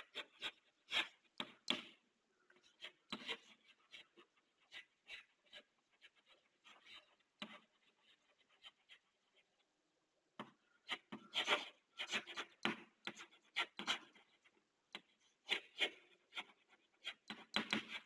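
Chalk writing on a chalkboard: a run of short scratches and taps as words are written, with a brief lull partway through and the densest strokes in the second half.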